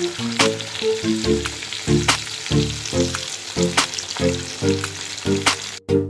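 Rava- and maida-coated tilapia deep-frying in hot oil in a pan, with a steady sizzle. Background music with stepping low notes and a regular beat plays over it, and the sizzle cuts off just before the end.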